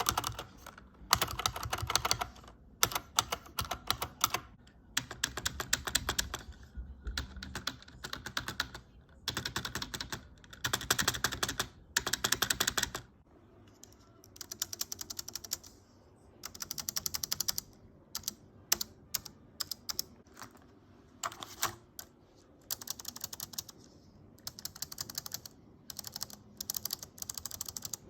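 Spacebars pressed on a series of keyboards: first a mechanical keyboard with brown switches, then a membrane keyboard, then a Bluetooth keyboard and a Mumuso BK3001. The presses come in rapid runs of clicks with short pauses between. About 13 seconds in the deep thud under the clicks drops away, and the taps turn lighter and thinner.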